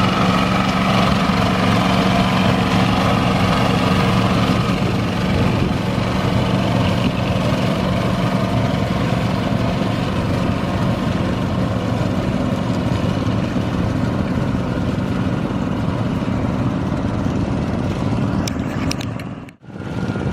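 Rice transplanter's engine running steadily, with a brief drop-out near the end.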